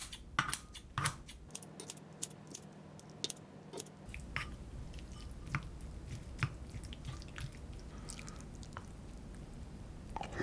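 Close-up eating sounds: chewing with scattered sharp clicks, like utensils tapping a dish.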